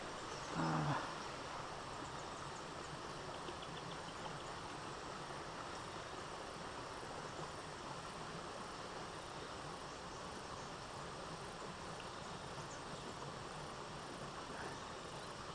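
Insects chirping steadily in the background, a faint high ticking that repeats evenly. A short voice-like sound comes about half a second in.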